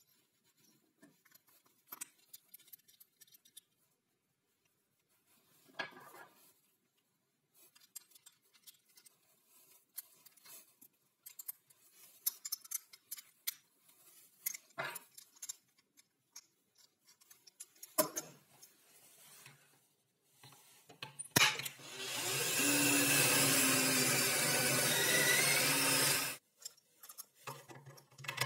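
Light clicks and ticks of a small metal bolt, nut and washers being handled and fitted into a wooden knob, then a power tool runs steadily for about four seconds, the loudest sound, and cuts off suddenly.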